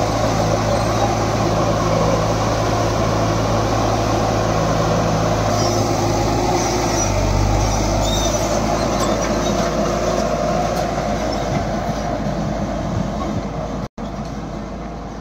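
Single-drum road roller (EC 5250 soil compactor) running steadily with a low engine hum as it rolls over a dirt road, growing fainter over the last few seconds as it moves away.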